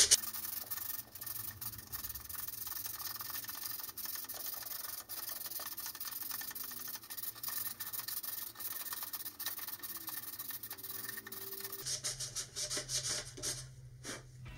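Hand-sanding with 220-grit sandpaper, rubbing back and forth in quick repeated strokes over the edge of the fibrous paperboard rings on a model rocket's coupler shoulder to round the edge over.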